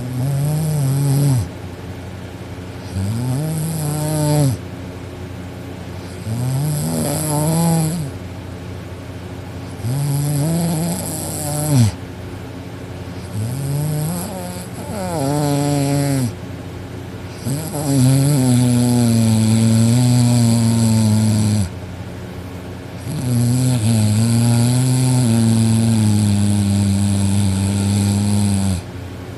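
A sleeping teenage girl snoring noisily: about eight pitched snores a second or two apart. The first six are short and rise and fall in pitch; the last two are drawn out for several seconds each.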